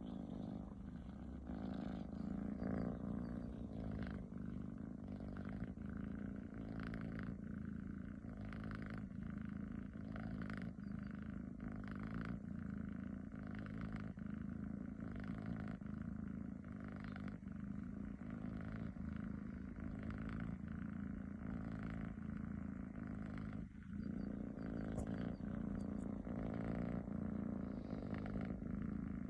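Tabby cat snoring: a steady low rumble that swells and eases over and over with its breathing.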